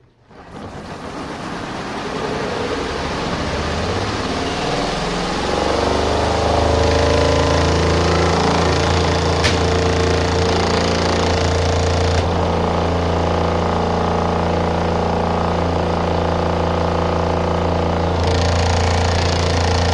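RV twin-tub washing machine's spin dryer spinning up. Its motor hum rises in pitch over the first five or six seconds, then holds steady at full speed, with rattling from the vibration hitting the spin dryer door. There is one sharp click about nine seconds in.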